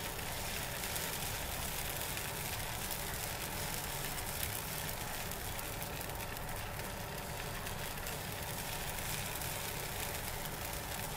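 Steady, even hiss of a flat pan on a gas burner as thin jala appam batter cooks on it, with no distinct knocks or clicks.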